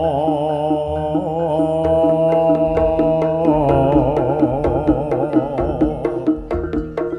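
Javanese jaranan music: a singer holds a long melismatic note with wide, wavering vibrato over a steady gamelan drone. Sharp hand-drum strokes quicken from about four seconds in.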